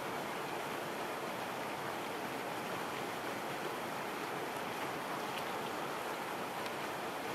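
Steady lakeside ambience: an even wash of noise from small waves on the water and a breeze, with no distinct events.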